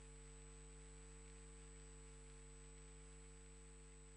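Near silence: a faint, steady electrical hum with a thin high tone over light hiss.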